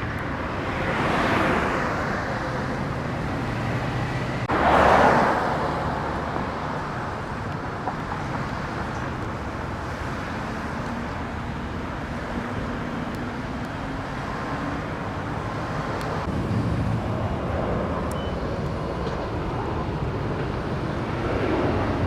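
Road traffic: a steady hum with vehicles passing one after another. The loudest pass comes about five seconds in.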